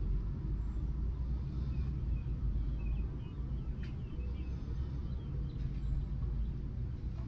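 Yamaha Grizzly 600's single-cylinder four-stroke engine idling steadily with a low rumble, run after its oil has been refilled.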